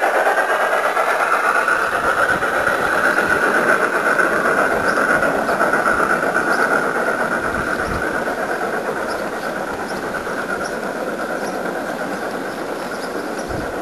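1:29-scale model passenger cars rolling past on garden railway track: a steady rolling rumble of wheels on rail that slowly fades, with a few low buffets of wind on the microphone.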